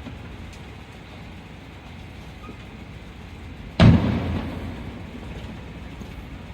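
A single firework shell bursting with a deep boom about two-thirds of the way in, its rumble dying away over about half a second, over a faint steady background rumble.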